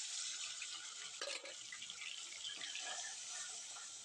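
Food sizzling in hot oil in a pan: a loud hiss that starts suddenly and slowly dies down, with a few crackles and clinks.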